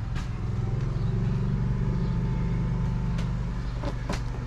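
Steady low hum of running machinery, with a few light clicks over it.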